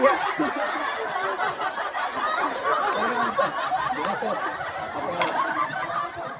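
Several children's voices talking over one another with snickering and laughter, a steady babble.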